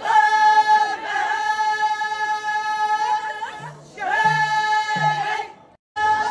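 A group of women singing together in unison, holding long, steady high notes. The singing breaks off briefly near the end.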